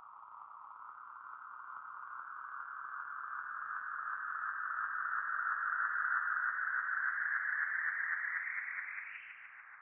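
Mad Professor Deep Blue Delay pedal self-oscillating: a sustained feedback tone that slowly rises in pitch and grows louder as the delay-time knob is turned. It bends up sharply near the end and then starts to die away.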